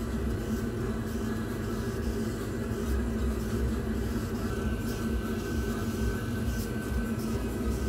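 Laser engraving machine running while its head scans across the board: a steady mechanical drone and hum, with a faint higher whine coming in about halfway through.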